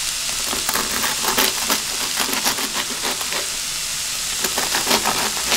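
A knife crunching through slices of dry toasted bread on a wooden cutting board in many short, irregular strokes, over the steady sizzle of onions and apple frying in oil in a pan.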